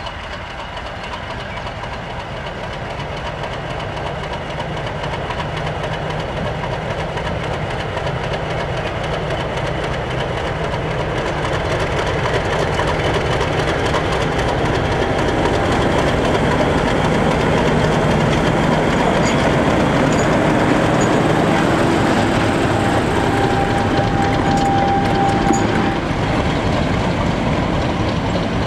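British Rail Class 50 diesel locomotive's English Electric 16-cylinder engine running as the locomotive moves slowly along the track, growing steadily louder as it approaches and passes. Its wheels clatter over the rail joints.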